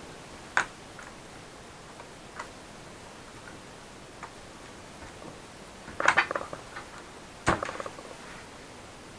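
Sharp clicks and taps of small laptop parts being handled: single clicks about half a second and two and a half seconds in, a louder rattle of clicks about six seconds in, then one more knock.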